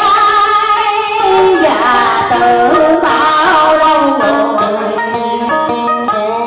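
Live Vietnamese đờn ca tài tử music: plucked string instruments playing a melody of sliding, bending notes, with a woman's singing voice at times.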